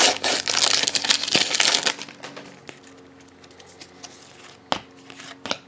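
Foil trading-card pack wrapper crinkling loudly for about two seconds as it is handled and pulled off the cards. After that it is quiet, with a few soft clicks as the cards are handled.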